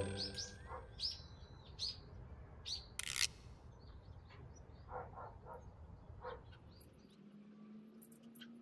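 Small birds chirping in a series of short, high calls, coming thick at first and then scattered, with one brief burst of noise about three seconds in.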